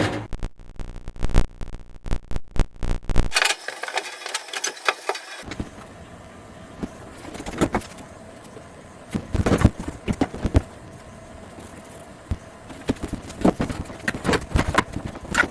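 Scattered knocks, clicks and thuds of hand work on a boat interior being torn out, with a quick run of clicks at the start and two louder thumps about ten seconds in.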